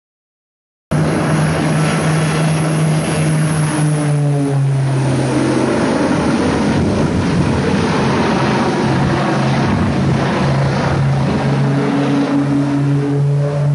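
Propeller engines of a twin-engine plane droning loudly as it flies a low, steeply banked pass. The drone starts abruptly about a second in and shifts in pitch partway through.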